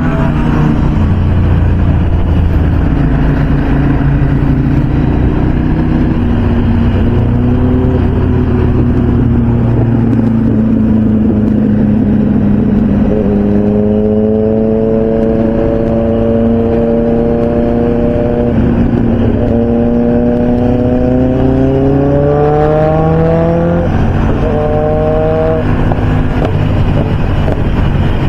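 Motorcycle engine running at highway speed under a steady rush of wind and road noise. About halfway through, the engine note climbs under acceleration, drops briefly at a gear change, climbs again, and shifts once more near the end.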